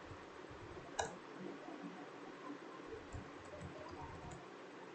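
Faint computer keyboard typing: scattered light key clicks, with one sharper click about a second in.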